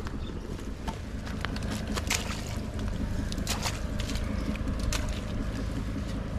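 Scattered clicks and crackles of a wet fine-mesh fishing net and mud being handled as fish are picked out, over a steady low rumble.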